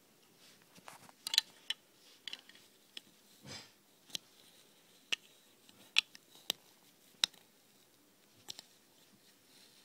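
Small plastic clicks and taps, about a dozen at irregular intervals, as a toy figure and Lego pieces are handled and pressed onto a Lego plate, with a brief soft rustle about three and a half seconds in.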